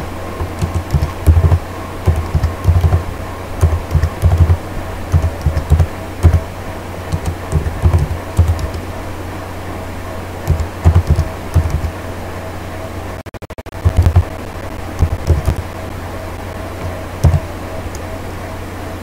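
Typing on a computer keyboard, irregular and unhurried, the keystrokes heard mostly as dull low thumps over a steady electrical hum. The sound drops out briefly about two-thirds of the way through.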